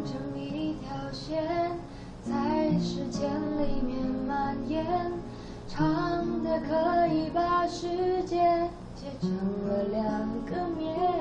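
A woman singing a slow song to acoustic guitar accompaniment, in sung phrases with short breaks between them.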